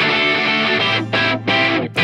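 Guitar-led intro music: a held chord, then short repeated stabs near the end.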